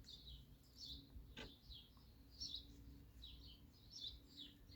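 Faint background birds chirping, many short chirps a second, with one faint click about a second and a half in.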